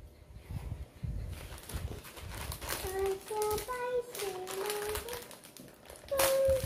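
A young child hums a wordless tune in steady stepping notes, ending with a louder held note near the end, while a foil snack bag of Baby Star Ramen crinkles as it is pulled open.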